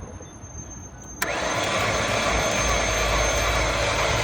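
Just over a second in, the starter motor kicks in and cranks the car engine, which spins fast and evenly without firing: a steady whir with no compression strokes, the sign of a snapped timing belt that has come off the cam pulley.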